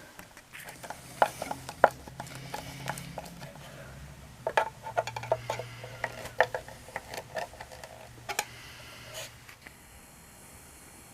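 Screws being driven into the slotted tabletop brackets: a run of irregular metal clicks and knocks over a low hum, ending about nine seconds in.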